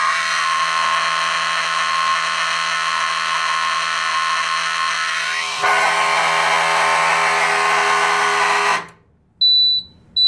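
Amseco BZ-54VT 12 V motor horn sounding a steady alarm tone from a pulled Fire-Lite BG-10 pull station, cutting off abruptly about 1.5 seconds before the end as zone 1 is disabled. Right after, the Fire-Lite MS-112 panel's trouble buzzer gives two short high beeps, signalling trouble for the disabled zone.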